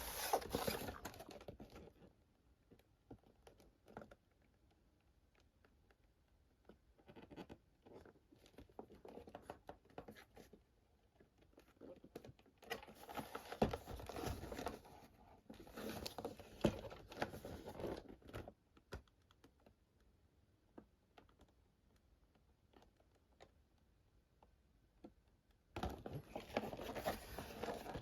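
A toy train set's box and packaging being handled and opened: bursts of rustling, scratching and light clicking, with quiet pauses between.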